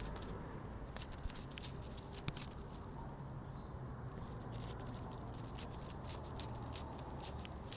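Butterfly wing-flapping sound effect: soft, irregular fluttering clicks in small clusters over a steady low hum.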